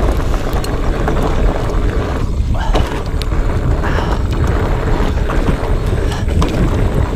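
Specialized Fatboy fat bike ridden over a rocky trail: a steady loud rumble of wind and tyre noise, with scattered sharp clicks and knocks from the bike rattling over the rocks.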